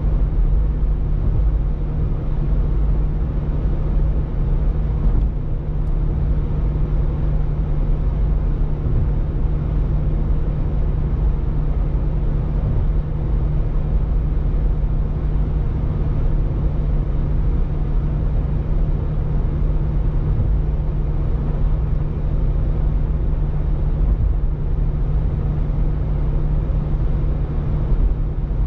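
Steady road noise of a car cruising at highway speed, heard from inside the cabin: a constant low drone with an even rush above it.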